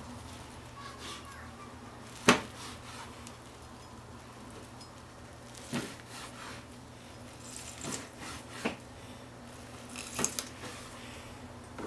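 Chef's knife slicing thin fried tofu (aburaage) on a plastic cutting board: soft slicing and scraping strokes, with a handful of sharp taps of the blade on the board, the loudest about two seconds in.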